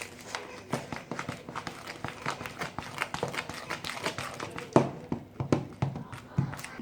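A spoon stirring a thick, stiff mixture in a bowl, with quick irregular knocks and scrapes against the bowl and a louder knock about five seconds in.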